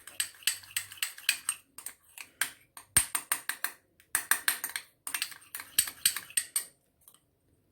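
Spoon clicking and tapping against a small bowl while stirring honey and lemon juice together, several quick clicks a second, stopping shortly before the end.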